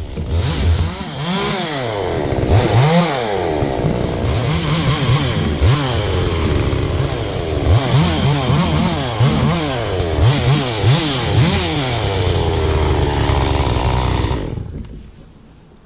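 Two-stroke chainsaw running at high revs, its engine pitch rising and falling over and over as the throttle works and the chain loads up in the cut. The saw drops away about a second and a half before the end.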